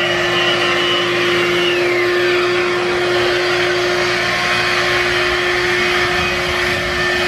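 Electric random orbital sander running steadily against a sailboat hull, with the shop vacuum on its dust-extraction hose running alongside. A higher whine drops away about two seconds in.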